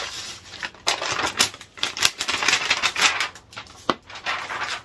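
Rustling and crinkling of a USPS Priority Mail mailing envelope as a stack of bagged comic books is slid out of it, in bursts with a few sharp clicks and taps, from about a second in to near the end.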